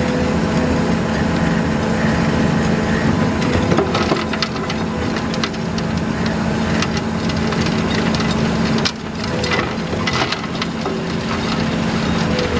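Komatsu PC210 excavator's diesel engine running steadily under load while its hydraulic Star Screener bucket turns and screens soil, with stones and clods rattling in the bucket as irregular clicks from about four seconds in.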